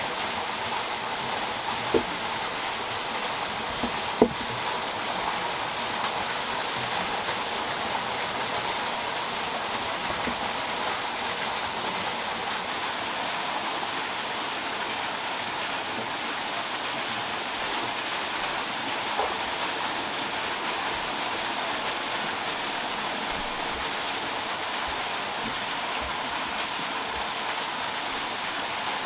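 Steady rush of flowing water. Two short knocks come in the first few seconds.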